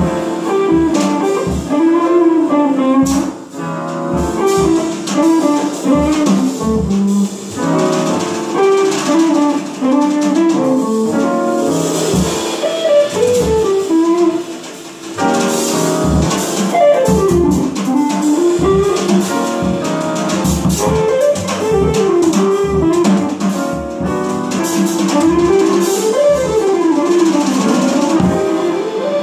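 Live jazz: a guitar plays winding single-note melodic lines over a drum kit and grand piano.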